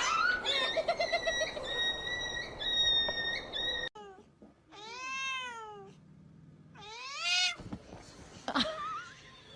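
Domestic cat meowing: two long, drawn-out meows that rise and fall in pitch, then a shorter call. They follow a sudden cut from a few seconds of noise with steady high tones.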